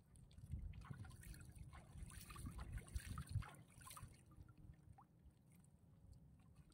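Faint sloshing and trickling of seawater against the side of a small outrigger boat as a plastic bait bag is dipped into the sea, with light crackling between about half a second and four seconds in.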